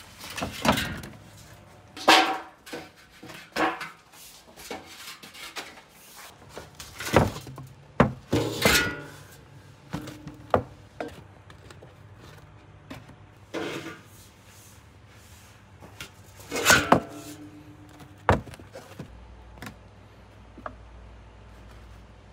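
Irregular knocks and clanks of a long-handled metal bread scoop and freshly baked tandoor ring breads being set down on a cloth-lined wooden tray, some knocks ringing briefly.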